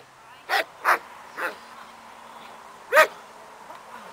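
German Shepherd barking at a helper during protection training: four sharp single barks, two in quick succession, then a softer one, and the loudest about three seconds in.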